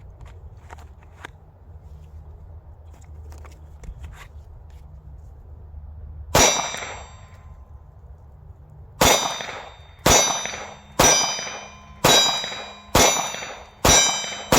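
Glock 43 9mm pistol firing: a single shot, then after a pause of a few seconds a steady string of shots about a second apart, each followed by a ringing tail, as the magazine is emptied.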